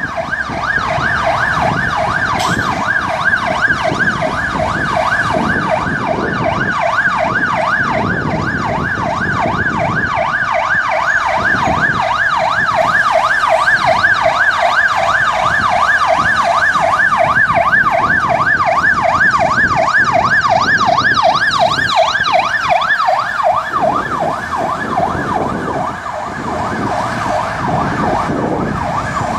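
Emergency vehicle siren on a rapid yelp, its pitch sweeping up and down about three times a second, weakening near the end, over the low noise of city traffic.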